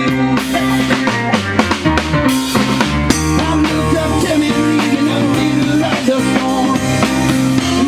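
Live rock band playing an instrumental passage: drum kit, electric guitar and keyboards together, with no vocals.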